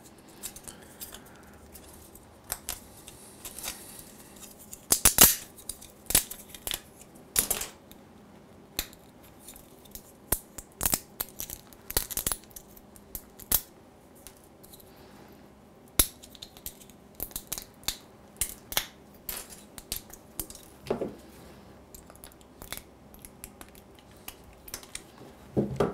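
Irregular sharp snaps and clicks of support material being broken and pried off 3D-printed Z-ULTRAT plastic parts by hand and with a small metal tool.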